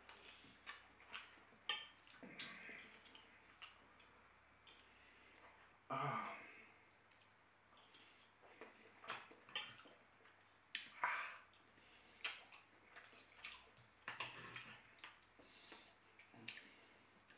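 Knife and fork clicking and scraping on a plate, with close-up chewing of rice and chicken: a scatter of faint sharp clicks and a few louder mouth noises.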